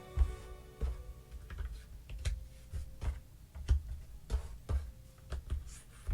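Cardboard jigsaw puzzle pieces being handled and set down on a table: irregular light clicks and knocks, about two a second, with faint music fading out early on.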